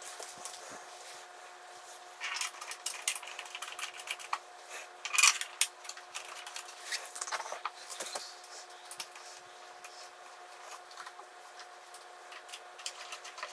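Plastic headstock cover of a mini lathe being handled and fitted back into place by hand: irregular clicks, taps and rattles of plastic and cable, loudest about five seconds in. A faint steady hum runs underneath.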